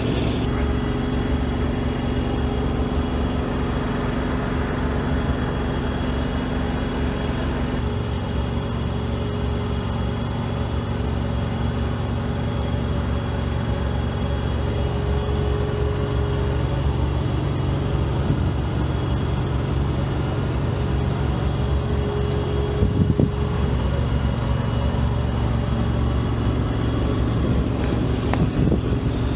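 Steady running of an engine together with the rush of a propane burner flame on thermoplastic marking equipment; the engine's low tones shift about eight seconds in.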